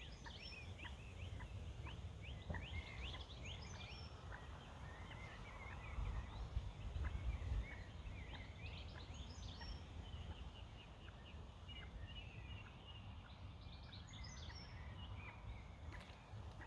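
Small birds singing and chirping, a scatter of quick high trills and chirps, over a low rumble that swells about six to seven seconds in.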